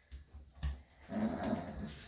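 Senior Shih-Tzu making a short, low vocal complaint at being handled, after a few soft knocks.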